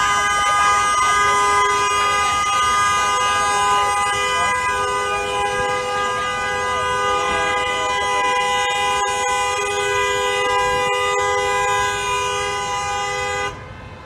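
Vehicle horns honking in one long, unbroken blast, two or more horn notes overlapping, sounded by drivers held up by a road blockade; faint voices lie beneath. The horns cut off suddenly near the end.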